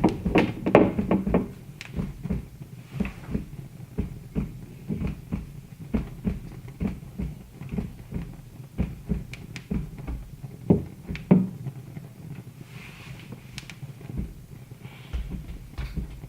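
Wood fire burning in a fireplace, crackling with irregular pops and snaps. They come thickest in the first couple of seconds, with a few sharper pops about eleven seconds in.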